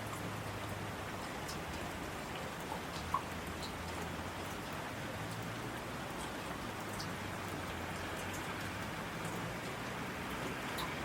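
Steady rain falling, an even hiss with scattered individual drops ticking sharply on a surface.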